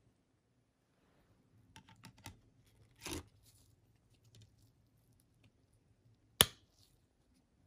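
Handling noises of a CD in its plastic jewel case: a few light clicks, a brief scuff, then one sharp click about six seconds in as the disc is pressed onto the case's centre hub.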